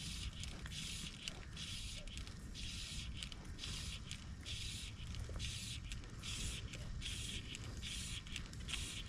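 Fly line being stripped in by hand through the rod guides: a repeated hissing swish about every two-thirds of a second, over a steady low rumble.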